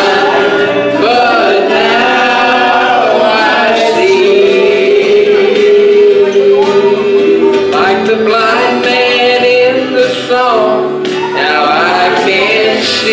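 A mixed gospel vocal group of men and women singing a hymn in harmony into microphones, with a long held note midway through.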